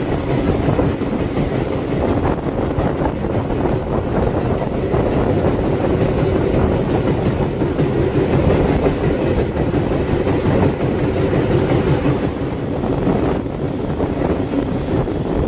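Train running along the track: a steady, continuous rumble of wheels on rails.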